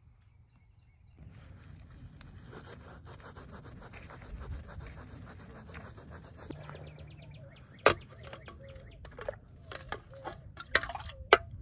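Dishes washed by hand in plastic bowls: a sponge scrubbing a slotted plastic spatula in quick, even strokes, then a few sharp clacks as utensils knock against the bowls in the second half.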